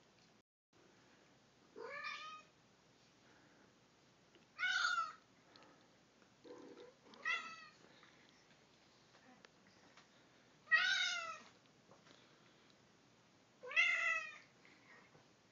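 Sphynx cat meowing five times during a play-wrestle, short calls a few seconds apart.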